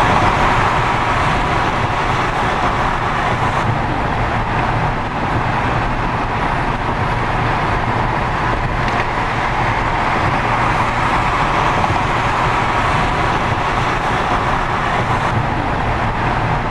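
Car driving, with steady road and engine noise heard from inside the car.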